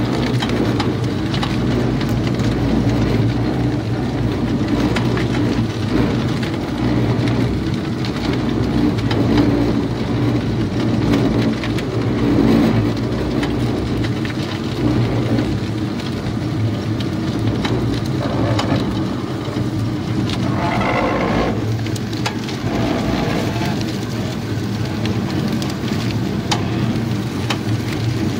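Powered sugarcane crusher running steadily, its drive and rollers giving a continuous mechanical hum with a rushing hiss as cane is crushed for juice.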